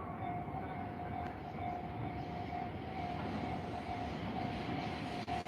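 Level-crossing warning bell ringing over and over, a repeating electronic ding, over the steady rumble of a passing train.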